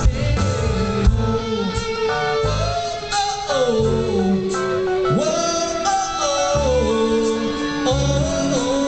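Live rock band playing: a male lead singer sings over electric guitar and a rhythmic low-end beat.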